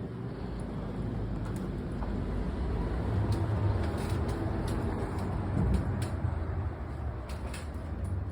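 Steady low mechanical rumble of a running motor or engine, with scattered faint clicks.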